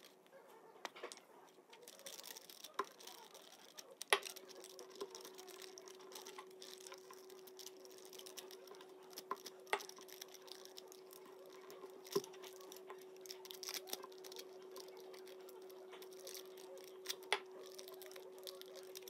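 Paper being folded and creased by hand on a wooden table: faint rustling and crinkling with a few sharp taps or clicks. A faint steady hum sets in about four seconds in.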